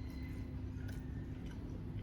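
Faint eating sounds: a few light mouth and chewing clicks over a steady low background hum.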